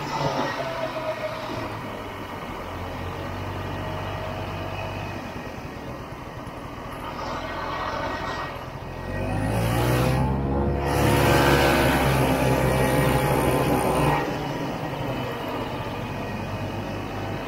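1967 Ski-Doo Olympique 250's two-stroke engine running as the vintage snowmobile rides along. It grows louder for several seconds in the middle, its pitch rising and then falling.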